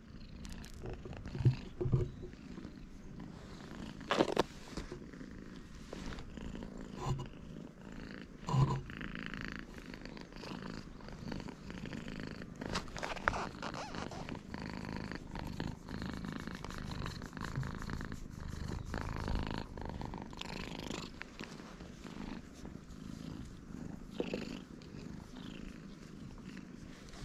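Black-and-white stray cat purring close to the microphone as it is stroked and rubs against the hand, with a few sharp knocks and bumps in the first several seconds.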